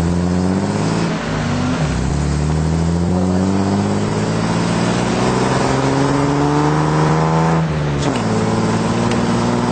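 Car engine accelerating under load, its pitch climbing steadily and then dropping sharply at a gear change about eight seconds in.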